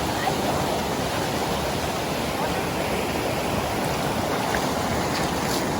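Steady rush of fast-flowing river water, a constant even noise with no breaks.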